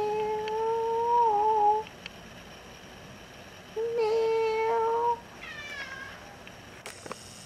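Domestic cat crying at a closed door to be let out: two long, level, drawn-out cries, the second about four seconds in, then a shorter falling meow. A brief click near the end.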